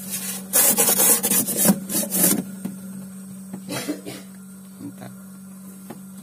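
Rubbing and scraping noise, loudest for about two seconds near the start, with a shorter scrape about four seconds in, over a steady low hum.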